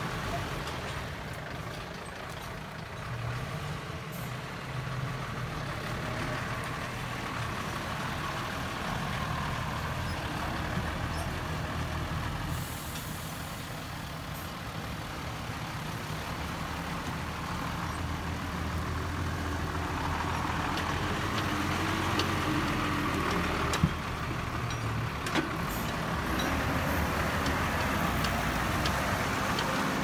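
Dump truck's diesel engine running at low speed under load, a steady low hum that shifts a little in pitch and grows louder in the last third, with a few scattered clicks and knocks.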